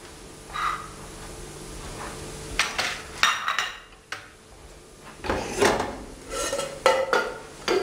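Crockery and kitchenware clinking and knocking: cups, saucers and a metal serving tray handled on a kitchen counter, in a series of separate short clinks that come thicker in the second half.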